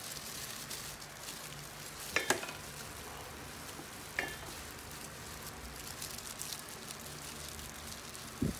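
Steady fine crackling of disposable plastic gloves and sticky rice being pressed into the end of a rolled sushi roll, with two brief sharp sounds about two and four seconds in.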